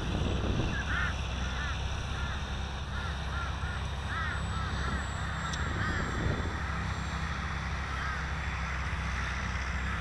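Birds calling in a rapid series of short, harsh calls that thin out after about six seconds, over a steady low rumble of wind on the microphone.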